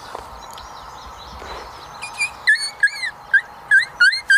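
About two seconds in, a rapid string of about ten short, high coyote-style yips and whines begins, each one swooping up or down in pitch; they are loud and continue to the end.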